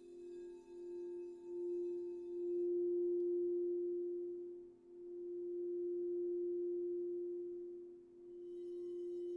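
Crystal singing bowls ringing with one deep, sustained tone that swells and ebbs in slow waves every few seconds. A brighter, high shimmer fades about two and a half seconds in and returns near the end.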